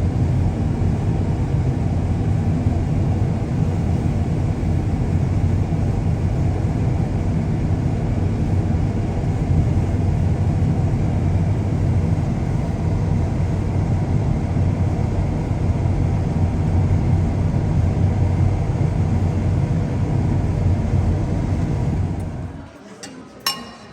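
Combine harvester running with a steady, loud drone and a deep hum. It cuts off suddenly near the end, and a few light clicks follow.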